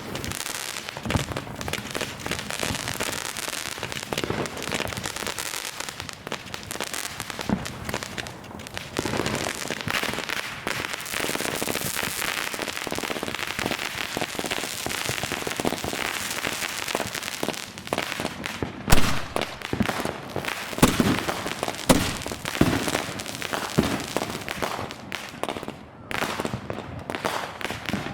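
Consumer fireworks (200-gram cakes and shells) going off in a dense, continuous run of crackling pops. Several louder, sharper bangs stand out about two-thirds of the way in.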